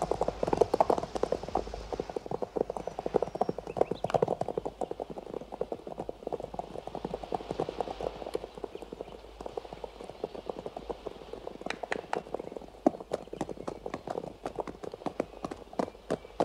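Hoofbeats of several horses ridden off together: a dense, overlapping clatter of clip-clop strikes on a track that thins out later, with a few louder single strikes after the middle.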